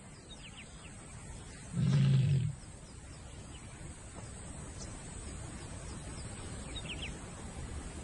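A lion gives a single low, pitched call lasting under a second, about two seconds in. Afterwards a faint steady outdoor background continues, with a few short high chirps.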